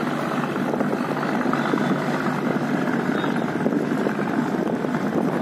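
Boat engines running with a steady, dense drone and no breaks.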